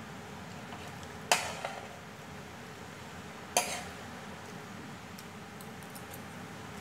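A metal fork clinks sharply against a plate twice while scooping up noodles, with a few faint ticks later on. A steady low hiss runs underneath.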